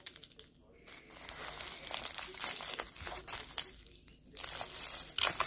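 Plastic bubble wrap being crinkled and pulled off a small wrapped item by hand: a run of crackles and snaps with a short pause about four seconds in, ending in one loud sharp snap.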